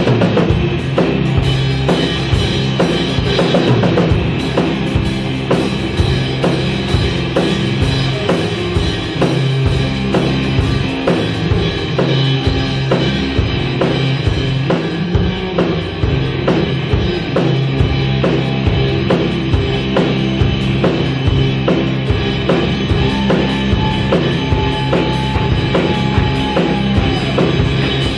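Instrumental rock music with a full drum kit keeping a steady beat under sustained guitar and bass.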